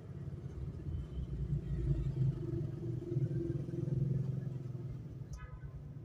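Low, steady vehicle rumble that swells in the middle and fades near the end, with a short sharp click about five seconds in.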